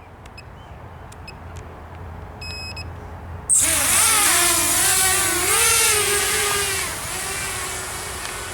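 A Walkera F210 FPV racing quadcopter: a few short electronic beeps, then, about three and a half seconds in, its motors and propellers spin up abruptly into a loud buzzing whine. The pitch wavers up and down with throttle, then settles to a lower, steadier hum near the end.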